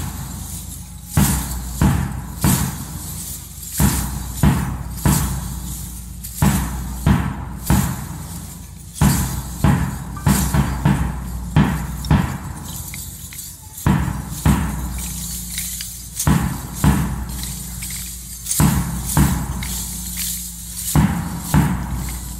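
A group of lezims, wooden handles strung with small metal jingle discs, shaken and clashed in unison, over strokes of a large drum. The strokes fall in a regular beat, with short pauses between groups.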